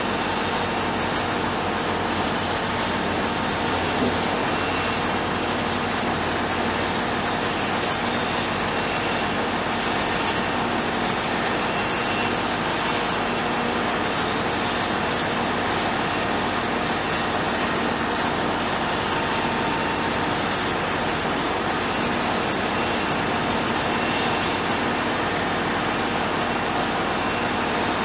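Heavy diesel construction machinery running steadily: a constant engine drone that does not change.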